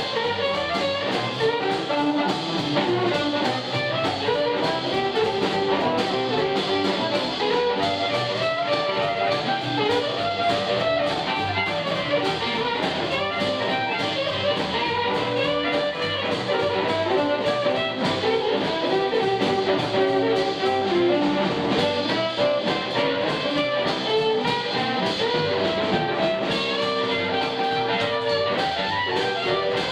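Live blues band playing an instrumental break: amplified blues harmonica leading over electric guitar, upright double bass and drums, with a few long held notes near the end.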